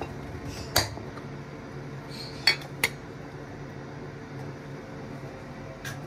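Cookware and kitchen utensils clinking: four short knocks, the loudest about two and a half seconds in, over a steady low hum.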